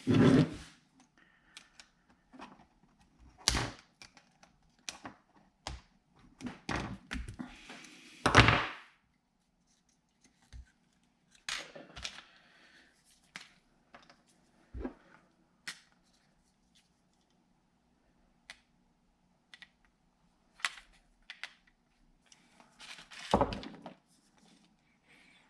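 Irregular clicks, knocks and thunks of tools and motorcycle parts being handled during fuel pump disassembly, with a few louder thunks, the loudest about eight seconds in.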